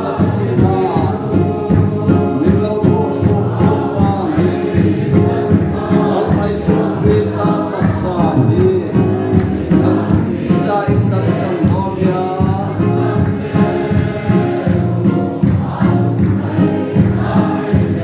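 A congregation singing a hymn together over a steady drumbeat.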